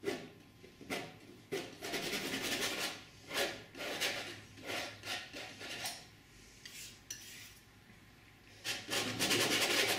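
Painting knife scraping and spreading oil paint across a stretched cotton canvas in a series of short strokes. A lull follows about six seconds in, then a longer stroke near the end.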